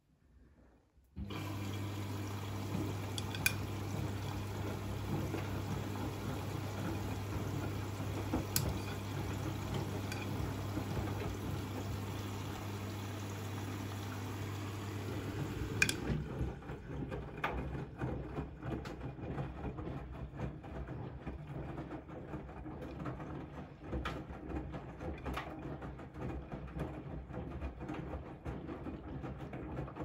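Siemens iQ300 front-loading washing machine at the start of a wash cycle. After about a second of quiet, water rushes in with a steady low hum; about halfway through the hum stops with a click. Then the drum turns, with water sloshing and laundry tumbling.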